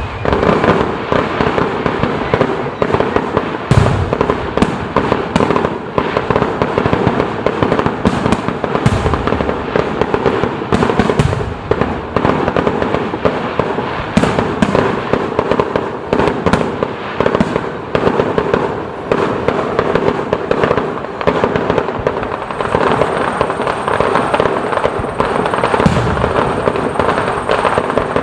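Fireworks display going off in a dense, continuous barrage: constant crackling with frequent sharp bangs.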